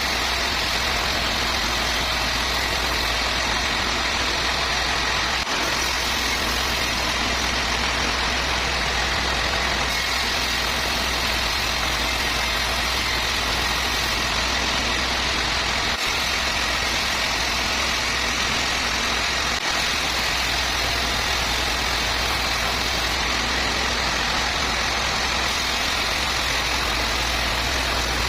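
Sawmill machinery running steadily: a constant low engine-like hum under an even hiss, with no change in pitch or level.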